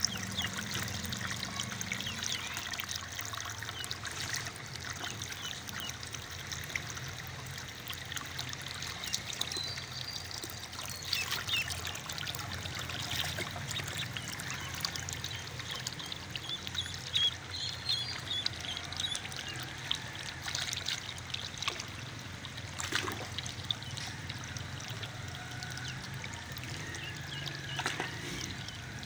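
Water pouring steadily from a hose into a plastic tub and splashing as ducklings swim in it, with short high peeps from the ducklings now and then.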